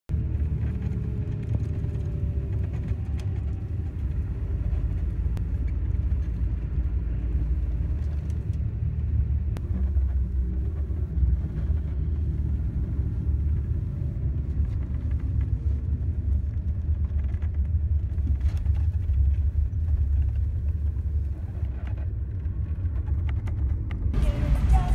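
Steady low rumble of a car driving on a rough dirt and gravel road, heard from inside the cabin, with a few small knocks from the bumps. Music comes in near the end.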